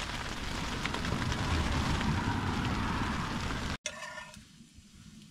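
Heavy rain pattering densely on the hot tent's fabric, heard from inside the tent. The sound cuts off abruptly about four seconds in, leaving a much quieter background.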